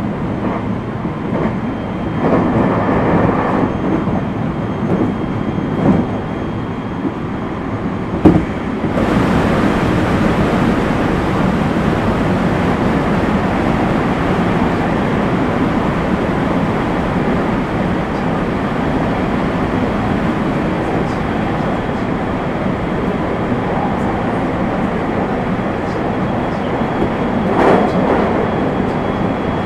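Commuter train running along the line, heard from the driver's cab: a steady rumble of wheels on rail. A sharp knock comes about eight seconds in, and from then on the running noise is louder and hissier.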